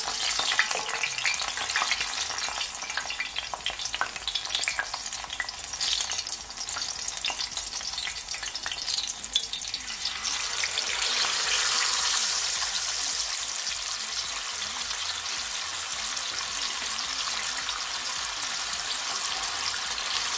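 Garlic cloves and a scotch bonnet pepper sizzling in hot vegetable oil, with scattered pops. About halfway through, a whole seasoned fish is laid in, and the frying swells into a louder, denser sizzle that then holds steady.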